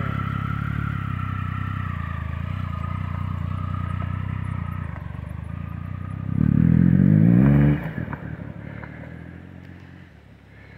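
Triumph Tiger motorcycle's three-cylinder engine idling steadily, then revving up briefly about six seconds in. The sound drops away sharply and fades out near the end.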